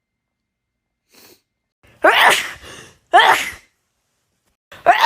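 A person sneezing three times in quick succession, the first about two seconds in and the rest a little over a second apart, each a sudden loud burst that quickly fades. A faint breath comes before the first.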